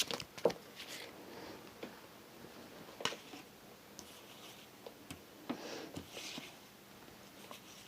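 Tarot cards being handled and laid out on a table: a few faint taps and soft rustles.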